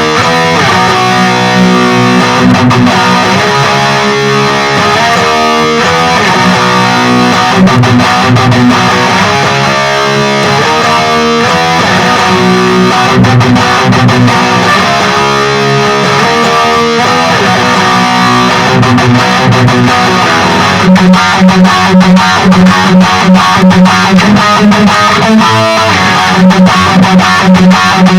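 Distorted electric guitar riffs from an LTD Deluxe guitar with active pickups, played through a Peavey Vypyr 15 modelling amp on its high-gain XXX amp model. Near the end the playing turns to fast repeated picking on a low note.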